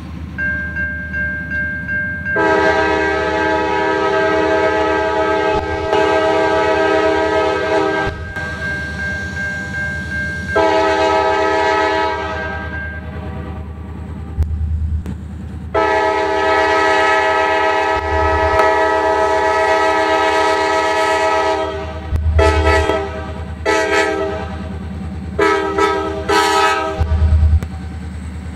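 Norfolk Southern diesel freight locomotive's air horn sounding for a grade crossing: three long blasts, then four short ones close together near the end. Beneath it is the steady low rumble of the locomotives' diesel engines.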